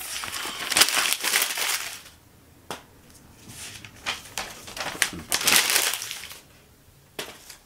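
Paper leaflets rustling and crackling as they are handled and shuffled, in several bursts with a couple of sharp taps between.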